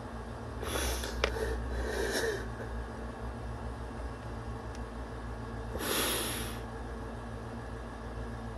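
A man sniffling while crying: three short, noisy sniffs about one, two and six seconds in, with a sharp click just after the first, over a steady low hum.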